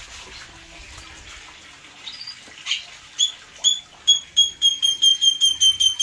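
Small aviary bird calling: a few separate short chirps about three seconds in, then a fast, even run of identical sharp chirps at about four to five a second.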